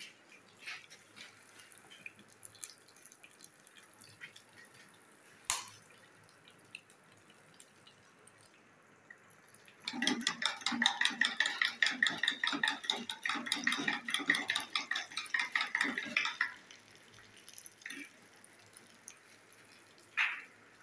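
Egg-coated minced-meat kabab sizzling and crackling in hot ghee in a metal karahi, starting suddenly about halfway through as it goes into the oil and dying down after about six seconds. Faint clicks come before it.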